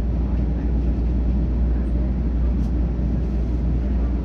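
TTC streetcar running along its track, a steady low rumble heard from inside the car.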